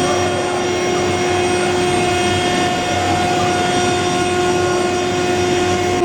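Tilting rotary aluminium-melting furnace plant running: a loud, even roar with a constant droning hum that holds unchanged.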